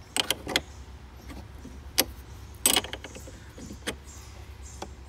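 Metal spanner clinking against a car battery's terminal clamp nut: a handful of short, sharp clicks at uneven intervals as it is fitted and worked on a nut that is not turning.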